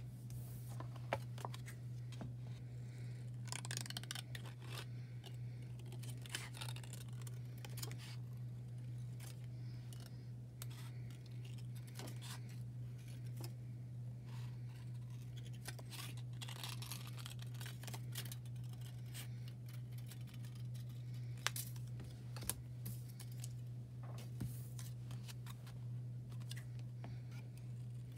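Red-handled scissors snipping around a marked circle in a sheet of cellophane: a run of irregular short snips and small clicks, with a steady low hum underneath.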